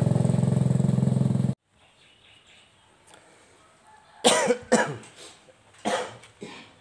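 The 150cc motorcycle engine of a small home-built jeep running steadily, cut off abruptly about a second and a half in. After a quiet stretch, a few short, loud sounds follow about a second apart.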